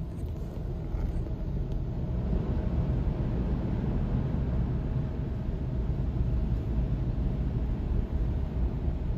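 Mark VII automatic car wash working over the car, heard from inside the cabin: a steady low rumble of water spray on the body and the wash machinery, with a faint steady hum. It grows a little about a second in and then holds.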